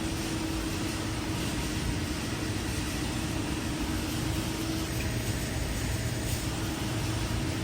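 Steady mechanical hum of a machine-tool factory floor: an even noise with one constant droning tone running through it.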